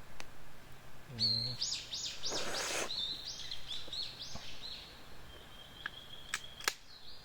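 A bird singing a quick run of high, arched chirping notes, about four a second, starting about a second in and fading out after a few seconds, with a brief rustle partway through. Two sharp clicks come near the end.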